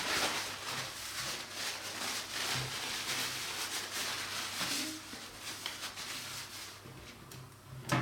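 Irregular rustling and handling noises, with a faint steady low hum underneath.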